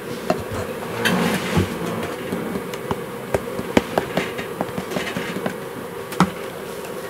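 Light sharp taps and knocks of a plastic flour container against a plastic measuring cup as flour is poured and shaken into it, over a steady buzzing hum.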